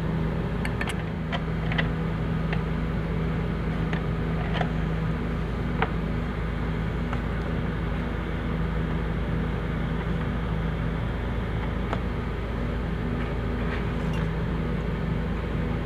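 Light metal clicks of hand tools on the valve adjuster of a stopped small engine, several in the first six seconds and a couple near the end. Under them runs a steady mechanical hum, the loudest thing throughout.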